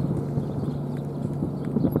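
Soft, irregular hoofbeats of a pair of harnessed horses trotting on grass while pulling a carriage.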